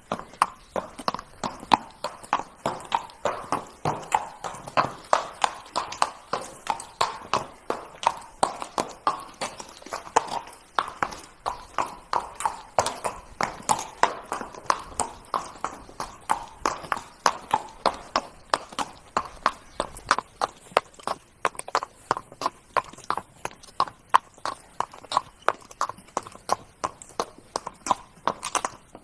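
Horse hooves trotting: a steady, even clip-clop of hoofbeats, several a second, that keeps on without a break.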